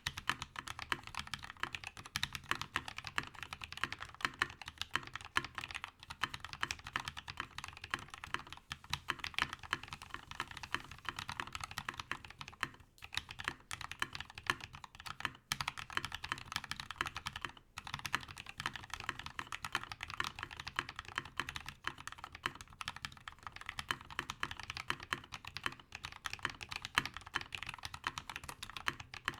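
Continuous fast typing on a mechanical keyboard with Tecsee Carrot linear switches in a brass plate with no plate foam and PBT keycaps: a dense run of crisp key clicks, pausing briefly a few times near the middle.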